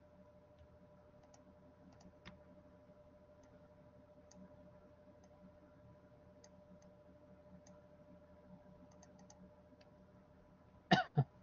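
Faint, scattered computer mouse clicks over a steady low electrical hum. Near the end come two short, loud sounds close together.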